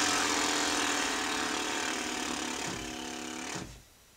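Lip-buzzing "brrr" imitation of a bulldozer engine, made with pursed lips: a steady buzz that slowly fades and stops about three and a half seconds in.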